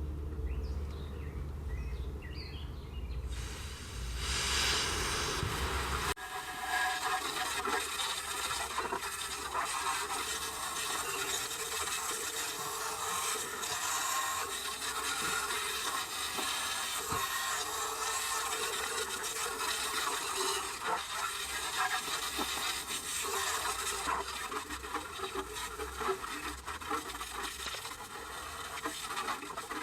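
Cub Cadet lawn tractor running with its mower deck: a steady mechanical noise. About six seconds in, the deep rumble suddenly drops away and a broad hiss takes over.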